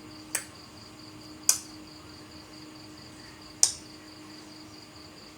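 Three sharp, separate clicks or snaps, the second and third loudest, over a steady high insect trill and a faint low hum.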